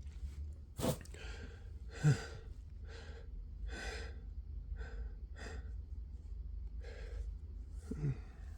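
Quick, noisy breathing of a person with the flu who still has a sneeze tickle: about ten short breaths in and out, with brief voiced gasps about a second in, about two seconds in (the loudest) and near the end.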